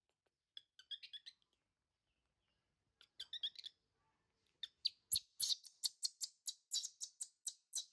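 Baby monkey crying in annoyance with short, high-pitched squeals: a few about half a second in, a few more around three seconds in, then a fast, unbroken run of squeals from about four and a half seconds on.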